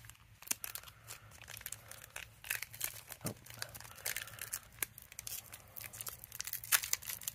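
Foil wrapper of a Pokémon trading card booster pack being torn open and crinkled by hand: a run of short crackles and rips, loudest near the end.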